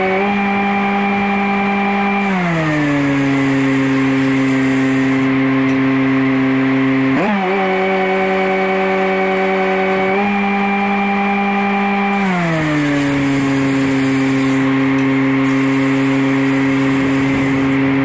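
An engine-driven welder's engine runs steadily during arc welding. Its pitch glides down about two seconds in, steps back up around seven and ten seconds, and glides down again about twelve seconds in, while the hiss and crackle of the welding arc comes and goes.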